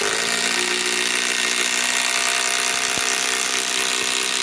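SKIL PWR CORE 20 cordless impact driver running continuously under load, driving a long structural wood screw down into a wooden block.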